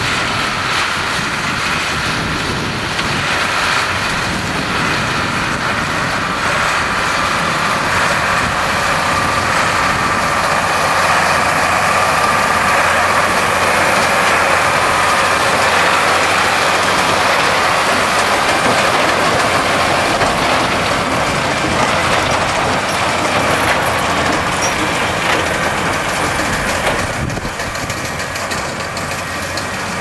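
Ford 7840 tractor's six-cylinder diesel engine running steadily under load, powering a Vicon MP800 big square baler through the PTO, with the baler's mechanism working as it picks up and packs straw.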